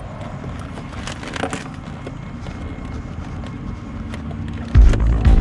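Steady background noise with scattered sharp clicks and a low rumble, then loud music with a heavy, pulsing bass starts near the end.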